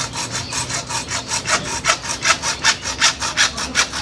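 Hand saw cutting through a CPVC plastic pipe, with quick, even back-and-forth strokes, about four to five a second.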